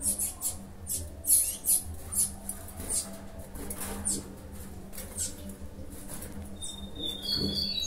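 Small caged songbirds giving rapid, thin, high-pitched chips, several a second at first and then sparser, with a short whistled note near the end. A steady low hum runs underneath.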